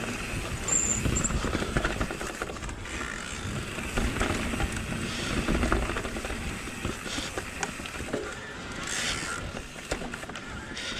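Electric mountain bike riding down a dirt forest singletrack: tyres running over dirt, roots and stones, with the bike rattling over the bumps and a low rumble.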